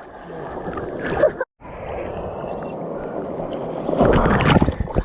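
Surf and water washing in a steady rush, briefly cutting out about a second and a half in, then swelling louder with a low rumble near the end.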